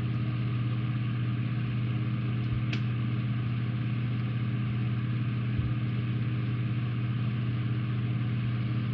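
Steady machine hum with an even hiss, running unchanged throughout, and a single light click about three seconds in.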